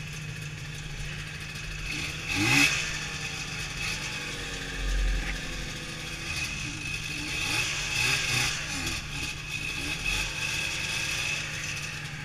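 Ski-Doo snowmobile's two-stroke engine idling, with short throttle revs that rise and fall in pitch; the loudest rev comes about two and a half seconds in, and several smaller ones follow in the second half.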